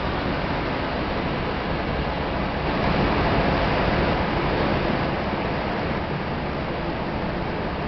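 Steady rushing background noise of an airport apron, with no distinct engine tone, swelling slightly about three seconds in.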